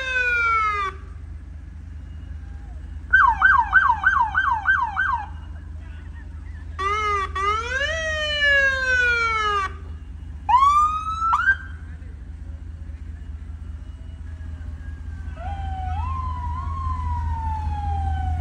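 Electronic emergency-vehicle sirens sounded in short bursts: a rise-and-fall wail, a fast yelp a few seconds in, another wail, two quick rising whoops about halfway, and near the end a long tone that climbs and then slowly falls. A steady low engine rumble runs underneath.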